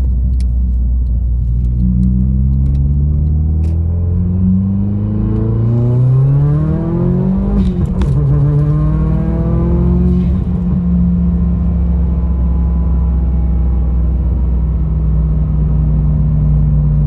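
Subaru WRX's turbocharged FA20DIT flat-four under hard acceleration: the engine note climbs for several seconds and peaks about eight seconds in. It then drops and settles to a steady drone for the rest of the time.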